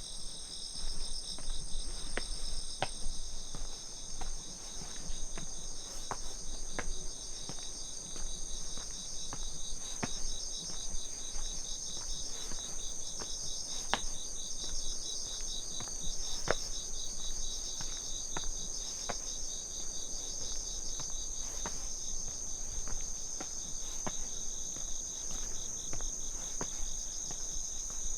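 Crickets and other autumn insects chirping together in a steady, finely pulsing chorus at several high pitches. Sharp footstep ticks from walking on the path come roughly once a second.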